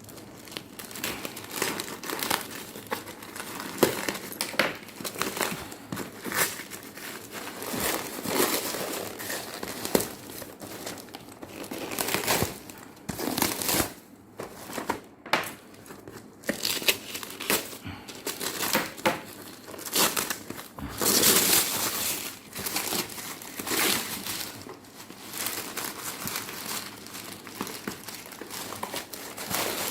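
Packaging being handled and unwrapped: irregular crinkling and rustling of wrapping, with some tearing, loudest about three quarters of the way through.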